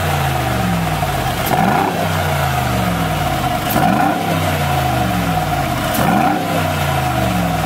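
Mercedes-AMG G63's twin-turbo V8 through a Fi Exhaust Ultra Edition valved catback with the valves open, blipped from idle three times, about two seconds apart. Each rev climbs quickly and settles back to idle.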